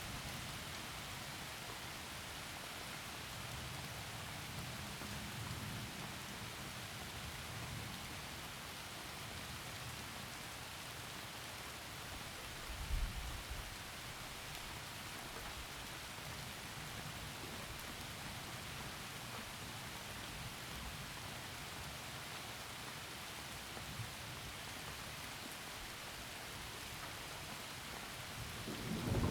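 Heavy rain falling steadily through forest trees, an even hiss, with low distant thunder rumbling underneath. A short low rumble swells about halfway through, and thunder starts to build right at the end.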